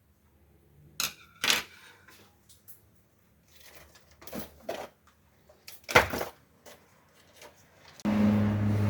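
Sharp plastic clicks and knocks as small toy car parts are handled, the loudest about six seconds in. About eight seconds in, the RC car's small electric motor and gearbox start running with a steady hum.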